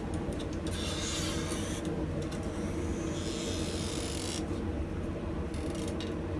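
Rough scraping, like a file or rasp on metal, lasting about four seconds from half a second in, over a steady low hum.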